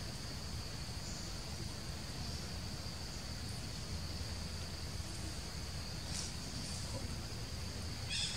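Insects droning steadily at one high pitch over a low, steady background rumble, with two brief sharp sounds, one about six seconds in and one near the end.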